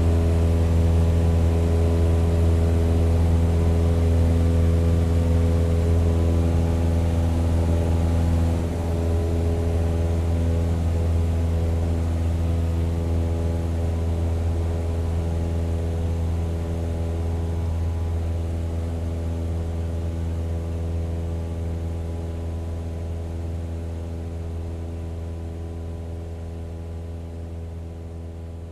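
Small DC motor spinning a toy plane's propeller, a steady buzzing hum that drops a little about eight seconds in and then slowly fades.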